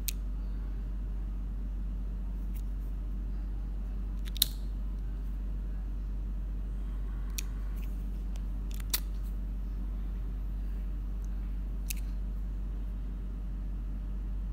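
Vintage Ronson pocket lighter being handled after lighting: a handful of short, sharp metallic clicks, the loudest about four and a half seconds in, over a steady low background hum.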